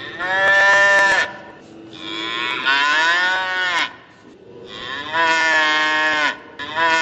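An ox mooing: a run of long, deep calls, one after another, one of them rising in pitch. A fourth call starts near the end.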